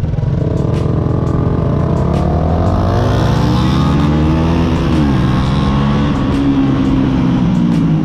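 Yamaha YZF-R125's single-cylinder four-stroke engine pulling away from a stop: the pitch climbs for a few seconds, drops sharply at a gear change about five seconds in, then runs fairly steadily.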